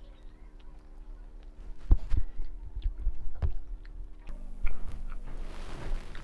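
Eating by hand: fingers squishing and mixing rice on a steel plate, with soft clicks and low thumps, then chewing. A steady low hum runs behind and changes pitch about four seconds in.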